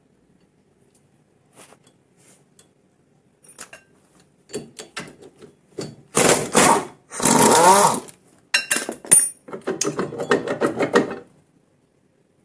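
Socket wrench undoing the rear axle bearing retainer's nuts: scattered metal clicks, then about two seconds of loud tool noise in the middle with a whirring pitch that rises and falls, followed by quick rattling clicks.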